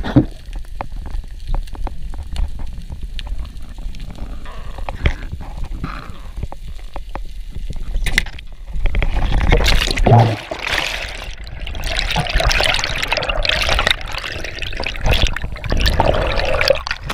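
Underwater sound through a helmet-mounted action camera: a low rumble with scattered sharp clicks, then from about eight seconds in a louder rush of bubbling water as the diver kicks toward the surface.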